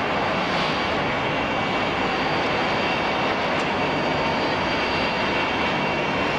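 Jet turbine noise: a steady rushing noise with several high, steady whining tones over it.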